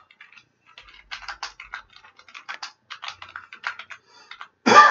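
Typing on a computer keyboard: a quick, irregular run of key clicks. Near the end a man clears his throat, the loudest sound here.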